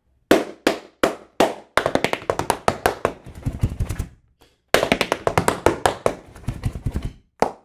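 Metal taps of tap shoes striking a wooden floor in tap-dance toe shunts. Four single taps come evenly spaced, then two quick runs of rapid taps with a short break between them, and one last tap near the end.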